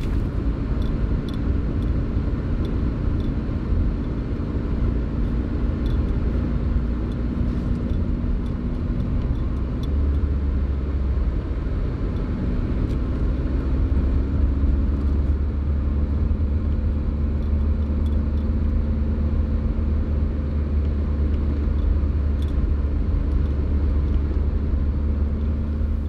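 A vehicle on the road: steady engine drone over a low road rumble, the drone rising a little in pitch about halfway through as the rumble grows heavier.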